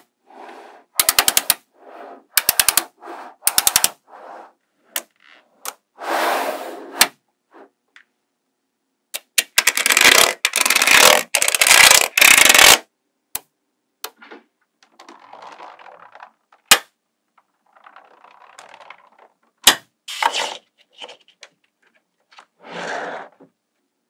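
Small magnetic metal balls clicking against each other in quick rattling bursts as blocks of balls are snapped together, with the longest, densest clatter about ten seconds in. Softer scraping and sliding of the balls fills the gaps.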